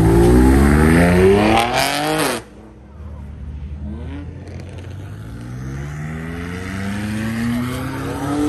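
A car engine revving hard under acceleration, its pitch climbing, then cutting off abruptly about two and a half seconds in. A second car's engine follows, rising steadily in pitch and getting louder as it accelerates.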